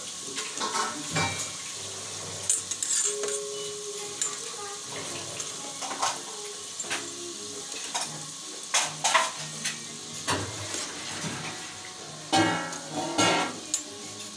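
Crescent-shaped pastries deep-frying in a wok of hot oil, sizzling steadily, while a metal spatula and ladle turn them and knock and scrape against the pan in scattered clinks, most busily near the end.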